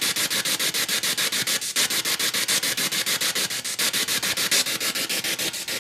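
Spirit box sweeping through radio stations: a steady hiss of radio static chopped into rapid, even bursts, about eight a second.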